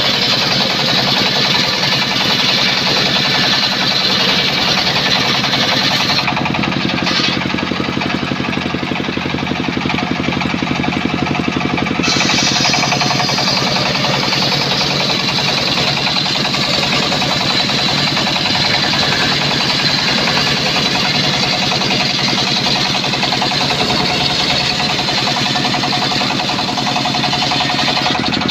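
Homemade circular sawmill's large blade ripping a mahogany beam lengthwise: a loud, steady cutting noise over the machine's running hum. For several seconds in the middle it turns duller and heavier.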